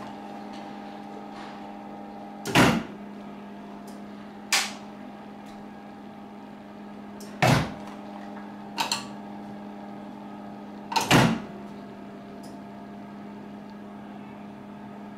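PS-450 automatic impulse sealer humming steadily while it runs, with three loud clunks a few seconds apart and two lighter clicks between them as its sealing bar clamps shut and releases on a foil bag.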